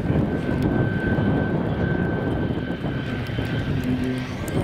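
Electric motor and propeller of a Slick 580 RC aerobatic plane (Kontronik KSG motor) in flight: a thin, steady whine over a heavy rumble of wind on the microphone. Near the end the motor sound grows fuller.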